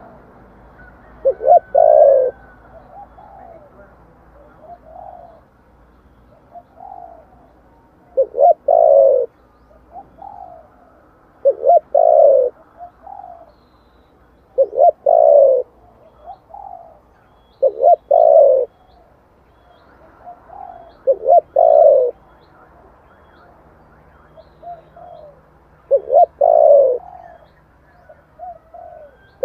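Spotted dove cooing over and over, each phrase two short notes and then a longer, falling coo, repeated about every three to four seconds with softer coos in between.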